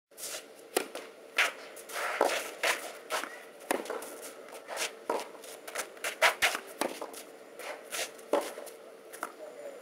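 Tennis serve and rally on a clay court: sharp pops of the racket strings striking the ball and the ball bouncing, with the players' shoes scuffing and sliding on the clay between shots.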